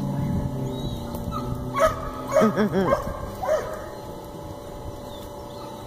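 A dog barking: a handful of sharp barks and high yips in quick succession from about two to three and a half seconds in.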